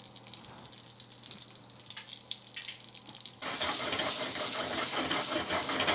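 Butter and sage sizzling in a hot skillet, faint crackle at first, then a loud, dense sizzle starting about halfway through.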